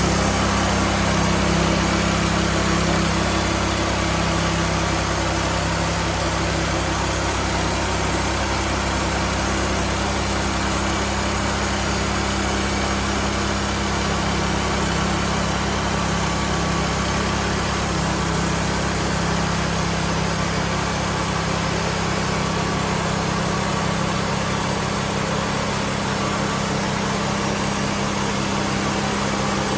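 An engine running at a steady speed, with a constant low hum and no change in pace.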